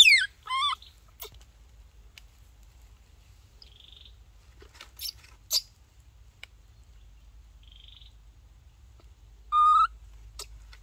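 Baby monkey's high-pitched cries: a loud falling squeal at the start, a second wavering one just after, and a held, steady-pitched whine about a second before the end, with a few faint clicks and chirps between.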